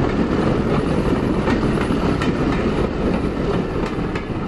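Train running along the track: a loud, steady rumble with scattered clacks of wheels over rail joints, beginning to fade near the end.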